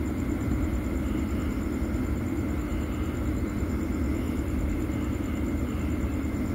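Steady low background rumble with a faint, steady high-pitched whine over it.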